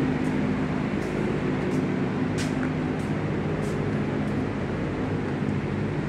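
A steady mechanical hum with a constant low drone, and light footsteps ticking about every two-thirds of a second while walking.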